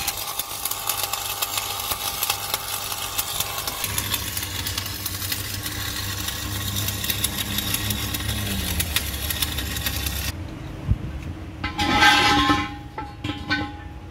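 Stick (arc) welding on a steel truck rim: a steady crackling sizzle of the arc over a low hum, cutting off abruptly about ten seconds in. A couple of seconds later comes a brief, louder ringing sound.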